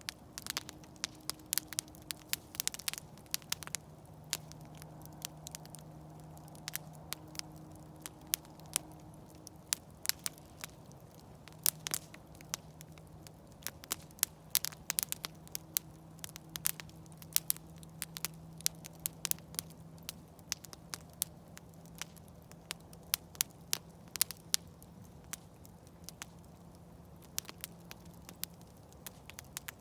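Campfire burning, wood crackling and popping in quick irregular snaps, with a faint steady low hum underneath.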